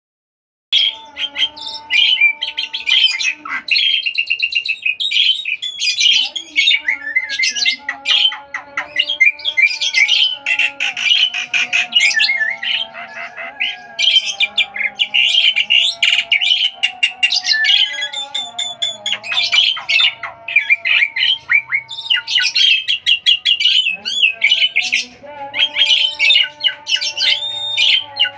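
Songbirds chirping and calling rapidly and continuously, close and loud, with quick high chirps over longer held whistled notes.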